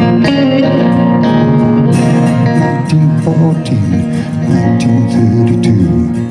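Instrumental break of a live folk-rock song: an acoustic guitar strumming chords together with two electric guitars, with some notes gliding in pitch.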